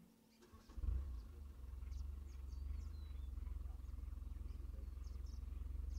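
A steady low rumble comes in about a second in, with faint short high bird chirps scattered over it.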